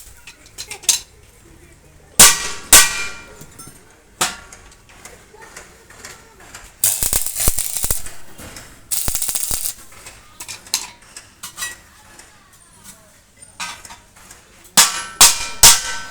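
Metal objects clanking together several times, each knock ringing briefly, with a quick cluster of clanks near the end and two longer bursts of hiss in the middle.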